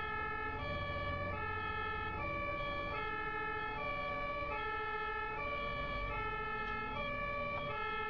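German ambulance two-tone siren (Martinshorn) sounding continuously, alternating between two pitches about every two-thirds of a second, over a low road rumble from the moving vehicle.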